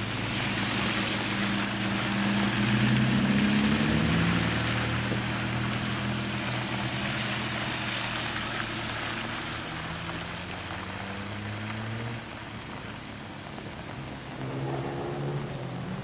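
BMW saloons pulling away along a wet road: one engine note climbs a little and is loudest a few seconds in, with the hiss of tyres on wet tarmac, then holds and fades. Near the end a second engine comes in.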